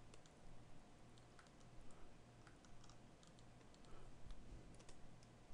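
Near silence with faint, scattered clicks of a computer mouse and keyboard over a low steady hum.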